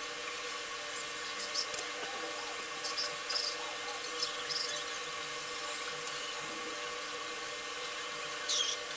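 Battered chicken mince balls deep-frying in hot oil: a steady sizzle with a few small pops and crackles.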